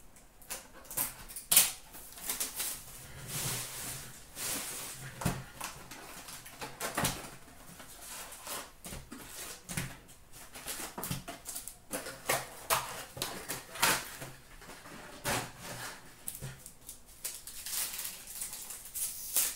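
Crinkling, rustling and tearing of a sealed SP Authentic hockey card box being opened and its foil card packs pulled out and handled, irregular crackles with the sharpest about one and a half seconds in.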